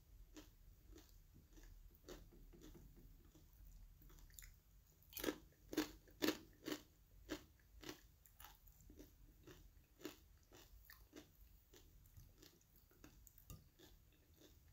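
A person chewing crunchy food close to the microphone: crisp crunches, clearest in a run of about two a second between five and seven and a half seconds in, then fainter chewing.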